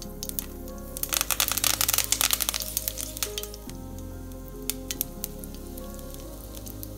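Curry leaves crackling and spluttering as they hit hot oil in a steel pan, a dense burst starting about a second in and dying down to a few scattered pops after a couple of seconds. Background music plays throughout.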